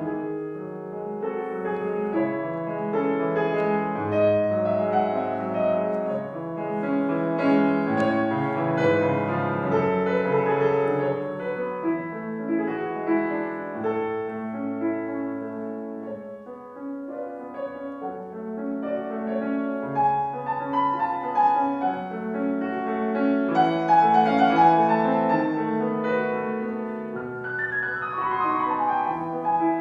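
Solo piano playing a classical piece, with held chords and melody notes and a quick descending run near the end.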